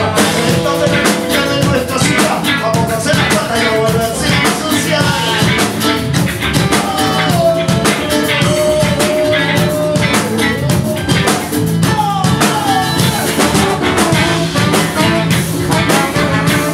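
Live ska-reggae band playing at full tilt: drum kit, guitars and horns including a trombone, with the full band coming in right at the start.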